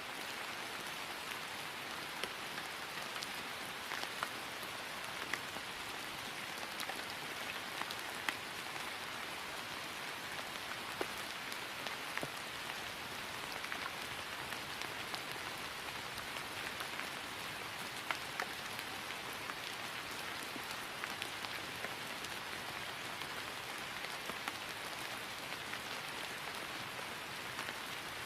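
Steady rain falling on grass, an even patter with many individual drops ticking through it.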